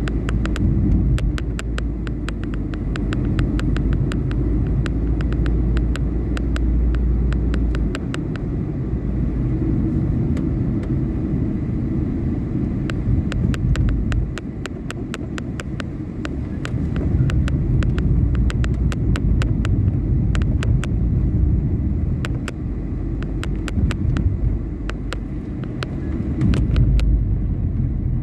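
Car driving along city roads: a steady low rumble of engine and tyres, with frequent short sharp ticks over it.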